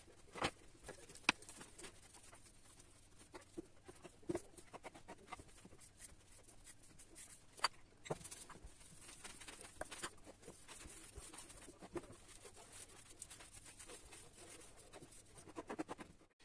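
Kitchen knife cutting soft pumpkin gnocchi dough into small pieces on a cutting board: light, irregular taps of the blade on the board, with a few sharper knocks.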